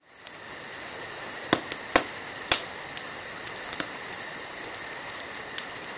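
Wood fire crackling in a stove: a steady hiss with irregular sharp pops, the loudest few coming between about one and a half and two and a half seconds in.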